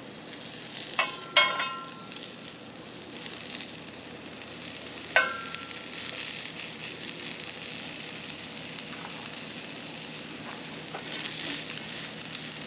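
Sausage links sizzling in a hot skillet over charcoal. A metal spatula clinks against the pan twice about a second in and once more about five seconds in, each clink ringing briefly.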